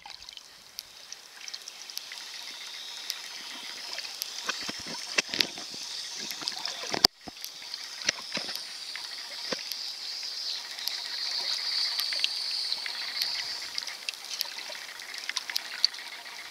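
Underwater sound picked up by a camera held below the surface: a steady hiss of moving water with scattered sharp clicks and crackles, and a brief cut-out about seven seconds in.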